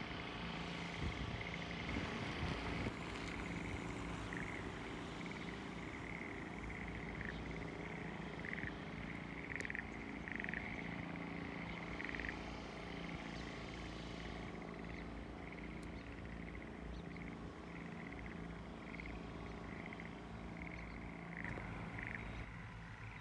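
Frogs calling in short, irregularly repeated chirps over a steady low rumble.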